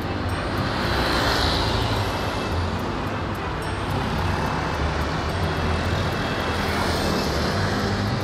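Road traffic passing close by: cars and motorbikes going past, their engine and tyre noise swelling and fading about three times over a steady low rumble.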